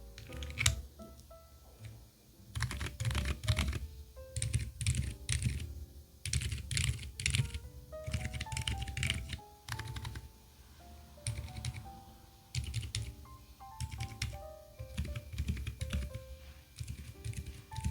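Typing on a mechanical keyboard fitted with Outemu switches, in bursts of rapid keystrokes separated by short pauses, over soft background music.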